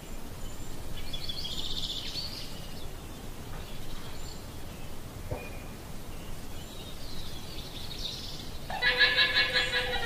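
Llama calling: a high call about a second in, a faint one later, and a louder, rapidly pulsing call near the end.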